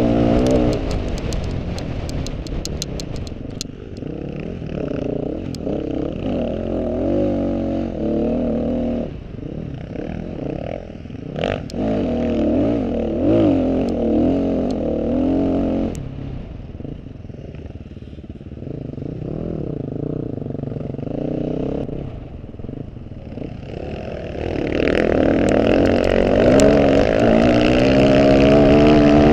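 Off-road motorcycle engine revving up and down with the throttle while riding. It eases off to a lower, quieter run in the middle, then opens up loud again near the end. A clatter of knocks in the first few seconds.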